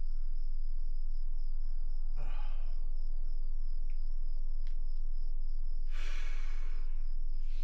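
A man sighs heavily twice, a short sigh about two seconds in and a longer, louder exhale about six seconds in. Underneath run steady cricket chirping and a constant low hum.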